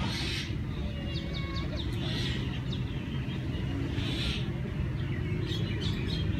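Birds chirping in short bursts and brief whistles over a steady low rumble.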